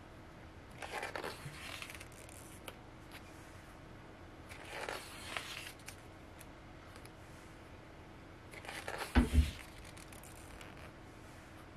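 Paper pages of a photobook being turned and handled: three papery swishes about four seconds apart, the last ending in two low thumps.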